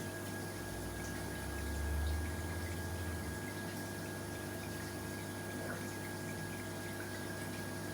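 A steady low electrical-sounding hum with a faint high tone above it, and a brief low rumble swelling about one to three seconds in.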